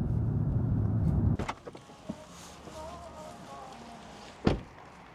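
Car cabin road noise while driving, a steady low rumble that stops abruptly about a second and a half in, followed by a quieter stretch with a single thump near the end.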